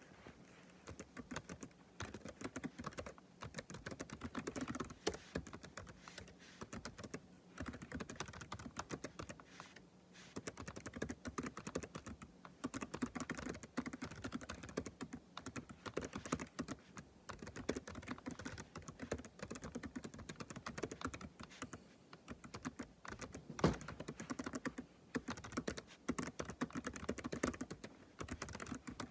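Typing on a computer keyboard: runs of rapid keystrokes broken by short pauses, with one heavier keystroke about two-thirds of the way through.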